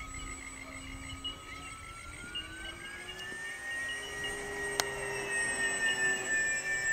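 Radio-controlled model floatplane flying overhead, its motor and propeller whining; the pitch dips, then rises and holds steady as the plane passes. A single sharp click about five seconds in.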